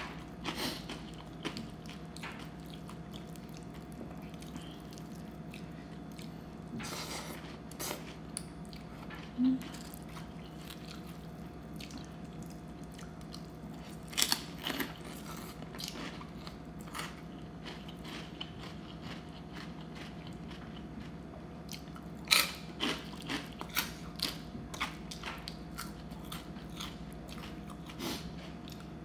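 A person eating close to the microphone, chewing and biting rice noodles in curry sauce and crisp pork crackling, with wet mouth clicks and smacks. A few louder clusters of crunching and smacking come about a quarter, halfway and three-quarters of the way through. A faint steady hum runs underneath.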